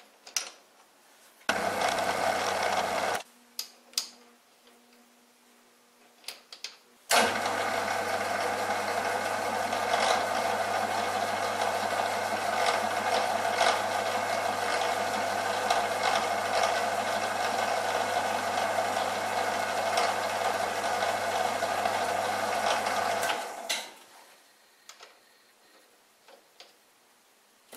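Bernardo Profi 600 G metal lathe running under a cut as a threading insert turns an M16 x 1.5 fine thread, a steady mechanical hum, briefly about two seconds in and then for about sixteen seconds from about seven seconds in. In the quiet stretches, faint clicks of a nut being tried on the thread by hand.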